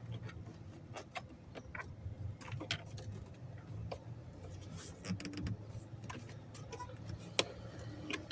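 Irregular light clicks and taps from a 9/32 extended ratchet and the filter housing's hardware being worked, over a steady low hum.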